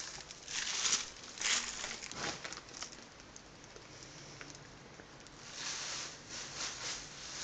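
Plastic bags crinkling and rustling as bundles of raw human hair are handled. The sound comes in short bursts, with a quieter stretch in the middle.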